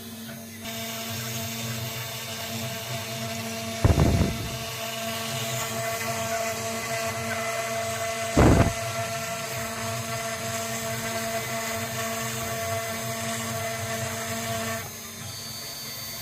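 CNC 6040 router's spindle running with a steady whine while the bit engraves plywood. A hissing cutting noise comes in about half a second in and drops away near the end. Two loud thumps come about four seconds apart.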